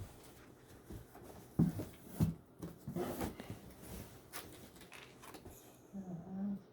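Cardboard box and packaging being handled: two sharp knocks a little over a second apart, then rustling and light clicks.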